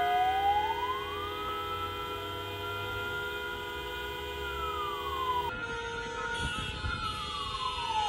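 Many car horns held down together in a steady, sustained chorus, sounded as a mass honking protest. A wailing siren glides slowly down and up over them. About halfway through, the sound cuts to a similar mix of held horns and a wailing siren.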